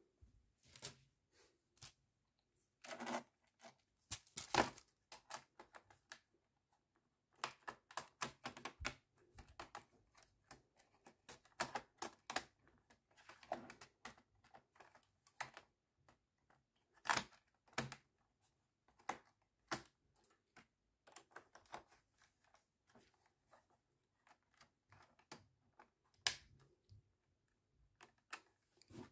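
Plastic bottom cover of a laptop being fitted back over the fan and heatsink and pressed into place by hand, giving irregular clicks, taps and knocks of plastic on plastic.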